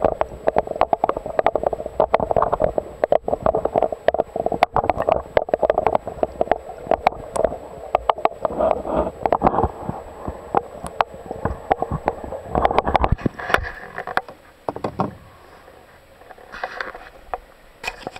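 Muffled underwater sound of a camera lowered from a kayak: a steady murmur full of sharp clicks and knocks, growing quieter about two-thirds of the way through.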